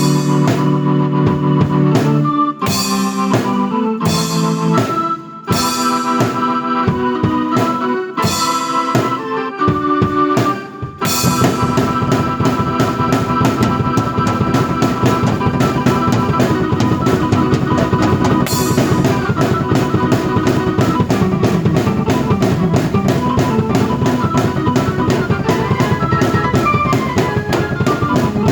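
Drum kit and keyboard played together by one performer. For about the first eleven seconds, organ-like keyboard chords are punctuated by drum and cymbal hits with brief breaks; then a steady, busy drum groove sets in under the keyboard.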